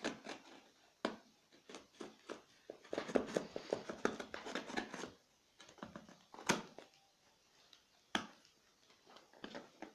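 Packing tape being peeled and torn off a parcel, with crinkling and rustling of the packaging: bursts of crackle and a few sharp snaps.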